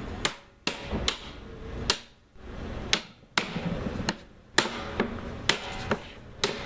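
Hammer striking a hoop driver to drive the head hoop down on an oak wine barrel, tightening the hoop around the head: about a dozen sharp blows at an uneven pace.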